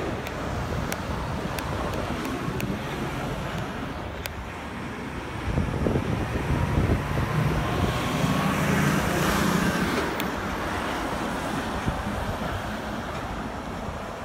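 Road traffic on the street alongside, with one vehicle passing close and loudest from about six to ten seconds in, over low wind rumble on the microphone.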